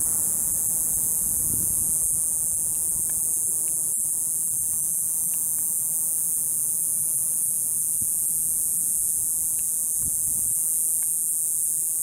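Cicadas calling in the trees: a continuous, high, steady buzz with no breaks. Now and then a low rumble of wind on the microphone.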